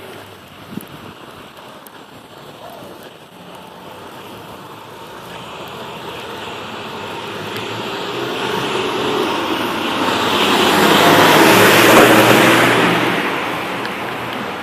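A vehicle passing by, its tyre and engine noise swelling slowly to a peak about twelve seconds in and then fading away.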